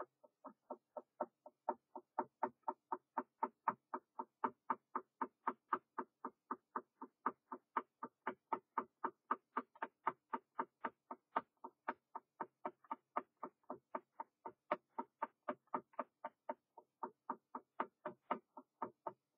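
Wooden dowel stirring soap mixture in a small glass jar, tapping against the jar's sides in a steady rhythm of about three to four taps a second, as the soap is worked to dissolve for a soap wood finish.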